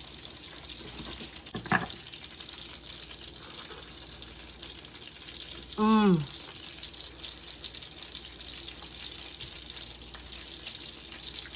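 Flour-battered chicken patties frying in hot oil in a pan: a steady sizzle. A short falling vocal sound about six seconds in.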